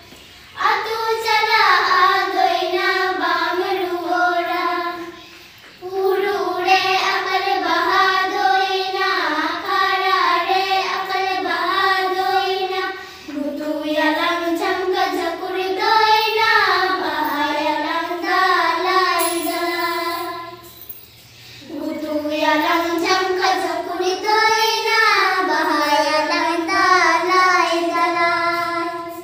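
Children's voices singing a melody in several phrases, with short breaks between them.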